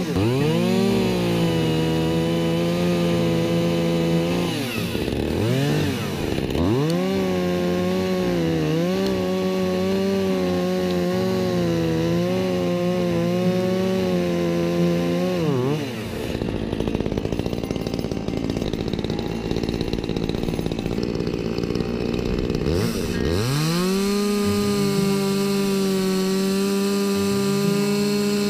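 Makita EA3201S 32 cc two-stroke petrol chainsaw cutting apple-tree branches at high revs. About five seconds in, the engine drops off and revs back up twice. Past the middle it loses its steady pitch and runs rough for several seconds, then revs up again to a steady high pitch.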